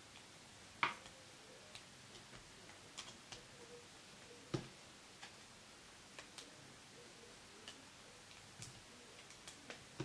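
Faint, irregular small clicks and taps of a hook and rubber bands being worked on a plastic Monster Tail loom, with two louder clicks about a second in and about four and a half seconds in.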